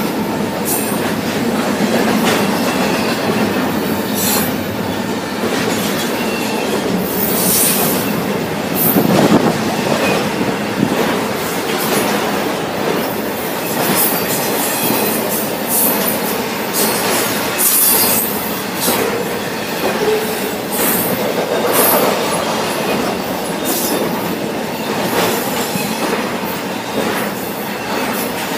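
Intermodal freight train passing close by: double-stack container cars and trailer-on-flatcar cars rolling on the rails in a steady rumble, with irregular clicks and knocks from wheels and couplers and a few short, high wheel squeals.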